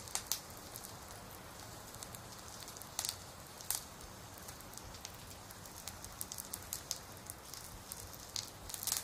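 Campfire crackling: sharp wood pops scattered over a steady low hiss.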